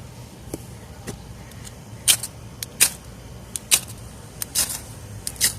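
A small ferro rod struck with a knife-sharpener scraper, about five sharp, hissing scrapes roughly a second apart from about two seconds in. These are repeated strikes to throw sparks; the small rod takes a few strikes to catch.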